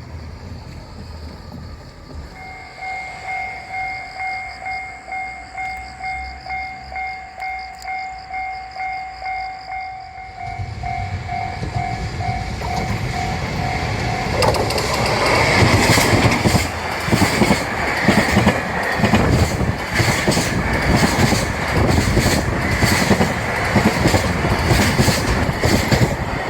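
Japanese railway level-crossing warning bell starts about two seconds in, dinging in a steady two-tone pulse about one and a half times a second. From about ten seconds a train's rumble builds. The train then passes through the crossing, loud, with a quick clatter of wheels over rail joints.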